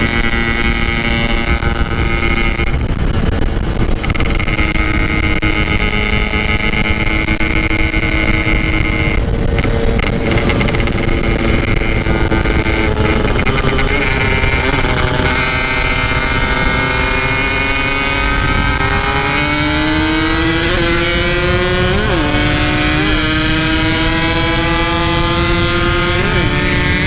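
Yamaha RX-King two-stroke single-cylinder motorcycle engine at full speed, heard from the rider's seat with wind noise. It holds high revs steadily, then eases off. Partway through it climbs again under acceleration, with two quick upshifts near the end.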